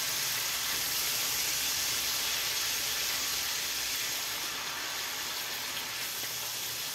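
Browned onions sizzling in a frying pan with Pedro Ximénez sweet wine just poured in, the liquid hissing as it cooks down. A steady hiss that eases a little about four seconds in.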